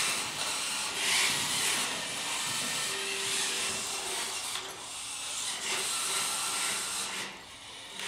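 Small FTC competition robots' electric drive motors and gearboxes whirring as the robots drive around the field. The steady, high-pitched whir briefly shows a short humming tone and drops away for a moment near the end.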